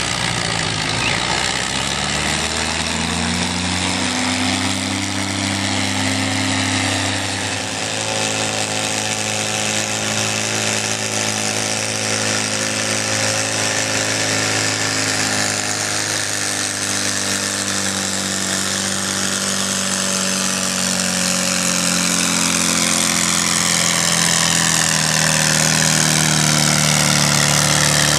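Antique tractor engine running hard under full load while pulling a weight-transfer sled. Its note climbs over the first few seconds, then holds steady, and it grows a little louder near the end.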